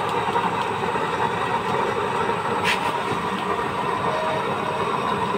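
Homemade waste-oil burner stove running steadily under a pot, a constant rushing noise of the burning flame, with one short tick a little past halfway.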